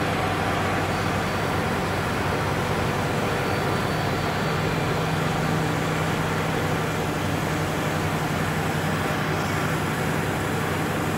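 Corrugated box partition assembly machine running, a steady mechanical din with a low hum that grows stronger a few seconds in.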